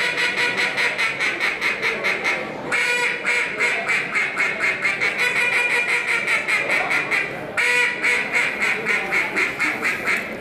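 Hand-blown duck call imitating a mallard hen, played as a fast, unbroken run of quacks at several notes a second. The run stops briefly twice, about two and a half seconds in and again near seven and a half seconds, for the caller to take a breath.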